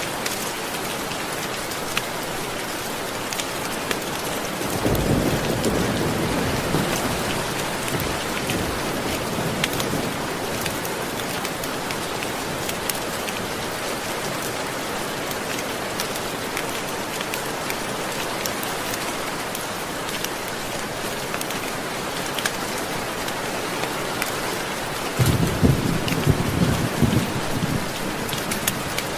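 Steady rain with scattered drop clicks, and thunder rumbling low twice: about five seconds in and again near the end.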